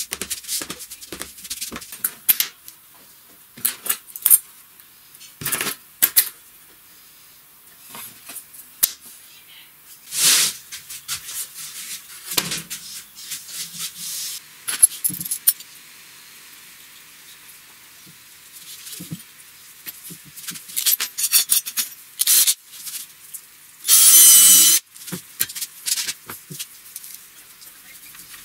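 Workshop handling noises: scattered clicks, knocks and rattles of a metal bar clamp, plywood panels and small metal latch hardware being moved and set down. One louder noisy burst of about a second comes near the end.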